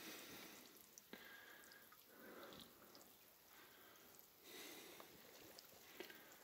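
Near silence: faint breathing and sniffing close to the microphone, a few soft swells, with tiny clicks of handling.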